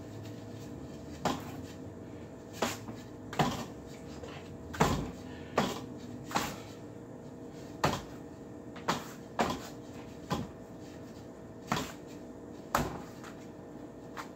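Rattan ring knocking against the forearms and wrists during ring drills: about a dozen sharp knocks at irregular intervals, roughly one a second.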